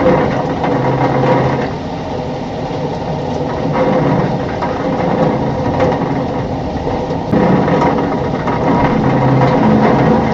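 Thunderstorm downpour and wind: a loud, dense, steady rush that eases a little after about two seconds and swells again about seven seconds in.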